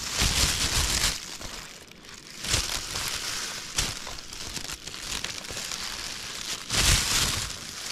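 A plastic bag worn over a hand crinkling and rustling in several bursts as the hand handles a pile of freshly caught fish.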